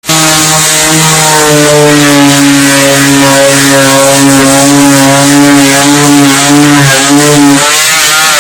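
Electric power saw switched on and running at full speed, its pitch wavering slightly as it cuts through wood. It is switched off at the end and begins to wind down.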